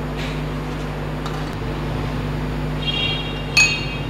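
A spoon clinking on a glass mixing bowl near the end, the glass ringing briefly after the strike, over a steady low hum.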